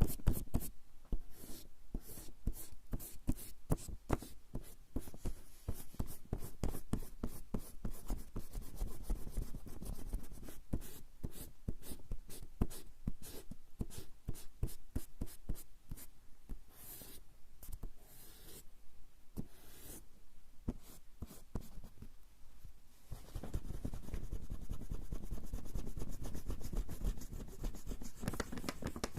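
A rubber eraser scrubbing back and forth on coarse straw paper (warabanshi), rapid rubbing strokes that thin out for a few seconds past the middle, then turn denser and steadier toward the end.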